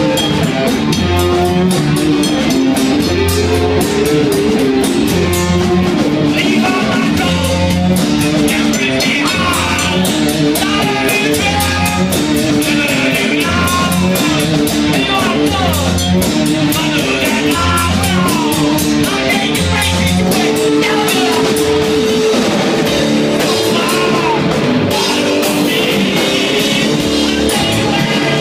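Live rock band playing loud: a drum kit with busy cymbals, distorted electric guitars over a repeating low riff, and a singer's voice.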